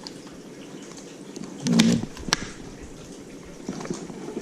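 A few clicks and knocks of hard plastic parts and clips being handled, with a short, louder low sound just before the sharpest click about two seconds in.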